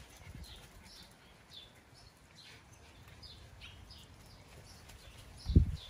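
A bird chirping over and over, short high notes about two a second, with a single low thump near the end.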